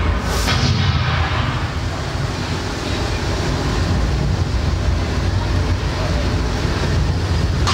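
Staged flash-flood and fire effects: a steady, loud rush of water pouring down the canyon walls over a deep rumble, with a short sharp burst from the tanker-truck propane fireball about half a second in.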